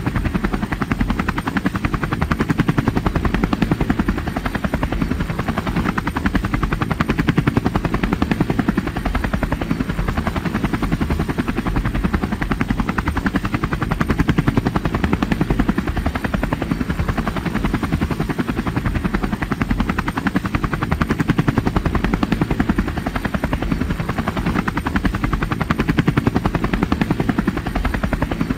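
Steady rotor noise of the aircraft carrying the camera: a loud, fast, even buzz that holds unchanged throughout.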